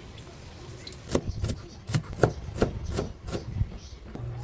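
Knife chopping on a cutting board: a run of sharp strokes, about three a second, starting about a second in.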